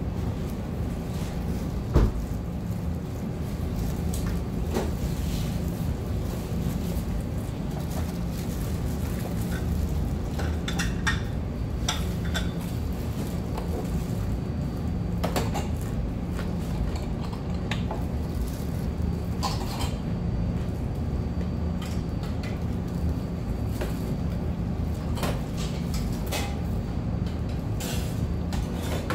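Scattered crackles and crunches of fried chicken being chewed and handled with plastic-gloved hands, with a single sharp knock about two seconds in, over a steady low hum of room noise.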